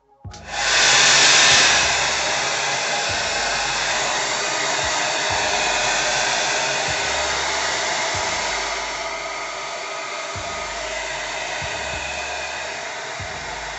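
Handheld hair dryer switched on just after the start and running steadily, blowing on hair to dry freshly sprayed wig glue. A little quieter from about nine seconds in.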